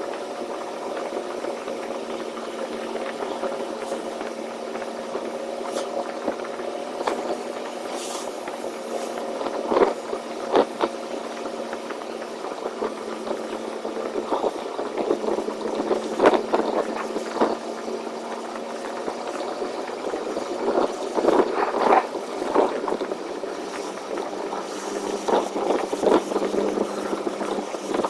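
Semi-truck's engine heard from inside the cab, a steady drone, with irregular rattles and knocks from the cab several times.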